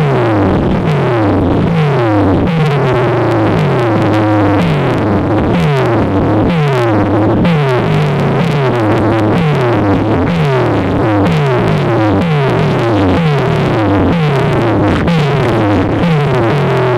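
Loud DJ remix music from a sound system: a synthesizer riff of quick, repeated falling pitch sweeps over a heavy bass line.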